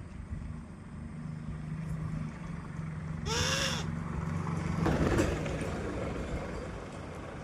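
A short bleat-like animal call about three seconds in, over a steady low hum, with a louder noisy burst about five seconds in.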